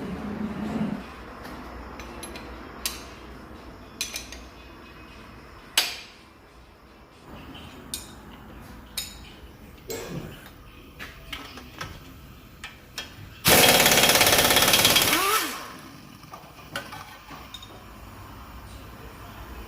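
Pneumatic impact wrench (air gun) hammering loudly for about two seconds, then winding down in a falling whine as the trigger is released. Scattered clanks and taps of tools and metal parts come before and after it.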